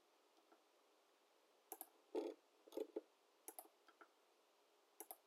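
Faint computer mouse clicks, a handful of them, several in quick pairs, over near silence.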